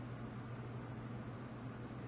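Steady background hiss with a low, constant hum underneath and no distinct sound events.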